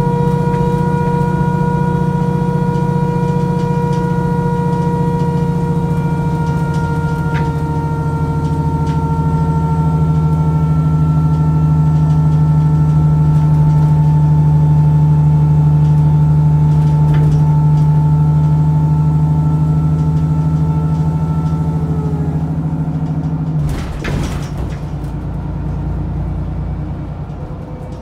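Alexander Dennis Enviro400 double-decker bus running with a low rumble and a steady whine over it, the strange noise this bus makes; the whine sinks very slightly in pitch and stops about 23 seconds in, followed by a short clatter.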